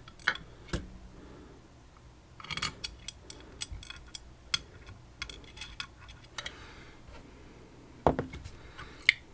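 Small metallic clicks and taps of pins and tools being handled while a PacLock padlock is disassembled, scattered irregularly, with a louder knock near the end.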